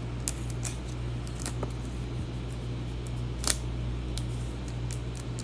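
Scattered light clicks and ticks of small objects being handled, one sharper click about three and a half seconds in, over a steady low hum.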